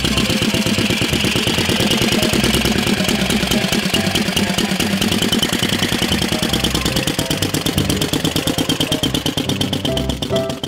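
1912 Flanders 4 single-cylinder motorcycle engine running with a rapid, even beat. Near the end it pulls away and the beat comes through more distinctly.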